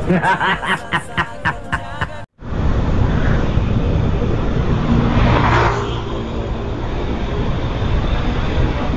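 A vehicle running along a road: steady engine hum and road noise, with a rushing sound that swells and fades about five to six seconds in. It opens with about two seconds of a different, voice-like pitched sound that cuts off abruptly.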